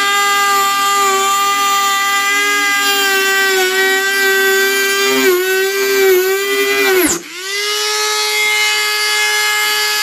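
A Dremel rotary tool with a small cutting wheel running at a steady, high-pitched whine as it cuts into a clear plastic jar. About seven seconds in, the motor slows almost to a stop and then spins back up to speed.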